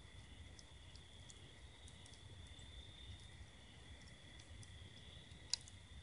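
Faint, steady chorus of night insects calling in a continuous high trill, with scattered small pops and crackles from a bed of hot fire coals; one sharper pop about five and a half seconds in.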